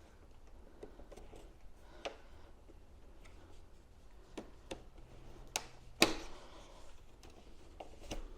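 Scattered sharp plastic clicks and snaps as the back cover of an HP all-in-one computer is pried loose with a pick. The loudest snap comes about six seconds in.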